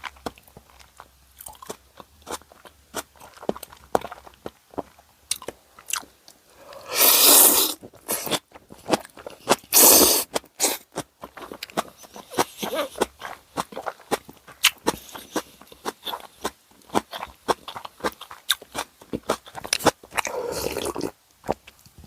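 Close-miked eating of karaage and tonkotsu ramen: a run of crisp crunching and chewing clicks, with three louder, longer noisy bursts about seven seconds in, about ten seconds in and near the end.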